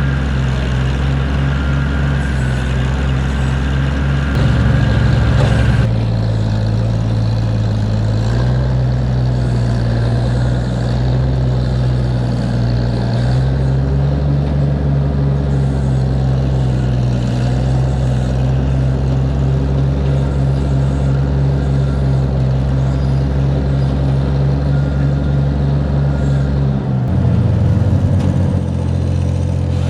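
A loader's engine runs steadily, its pitch changing several times as engine speed rises and falls, with a clear drop in speed near the end.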